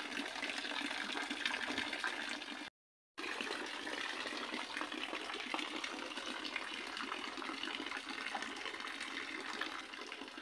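Steady rushing noise like running water, broken by a moment of silence about three seconds in.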